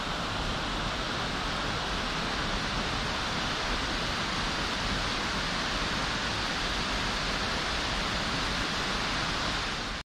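Steady rush of falling water from Shiraito Falls, a 20 m waterfall where a main plunge and many thin curtains of spring water seeping out of the cliff pour down together. It is an even hiss with no rhythm, and it cuts off abruptly at the very end.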